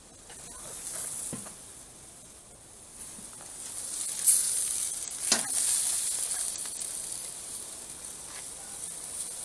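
T-bone steaks sizzling on a hot grill grate, the sizzle growing louder about three seconds in as the grill lid is lifted, with a few sharp knocks from the lid being handled.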